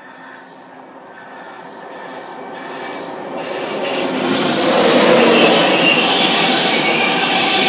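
East Coast express passenger train passing at speed: the rush of it grows quickly about three and a half seconds in as it reaches the camera, then holds as a loud, steady noise of wheels on rail while the coaches go by, with a faint high ringing from the wheels.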